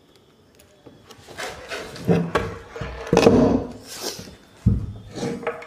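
Irregular knocks and scrapes of a plywood drawer box being handled and shifted on the floor, with some rubbing along its PVC-banded edge.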